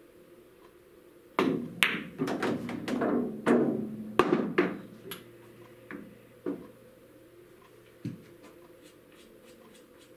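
A pool shot: the cue strikes the cue ball about a second and a half in, followed by a quick run of sharp ball clicks and knocks as the object ball is potted. A low rolling rumble follows as the potted ball runs through the table's ball return, ending in a knock about eight seconds in, with a couple of single light knocks in between as the cue ball is set down.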